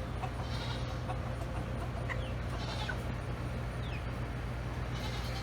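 Chickens clucking, with short high calls every second or so, some falling in pitch, over a steady low hum.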